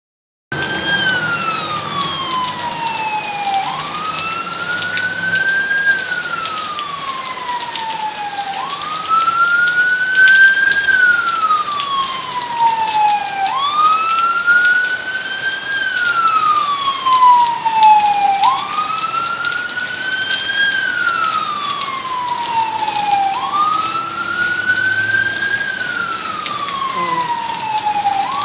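A siren wailing in a slow repeating cycle, each cycle rising quickly and then falling over about four seconds, about six times over. Beneath it is a steady hiss of rain and running water.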